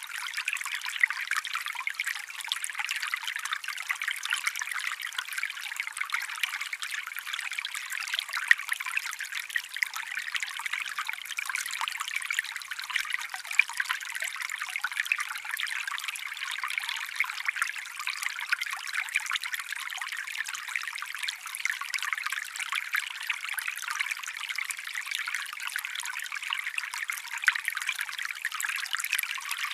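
Small forest stream trickling and babbling over stones, a steady splashing with many small bright plops.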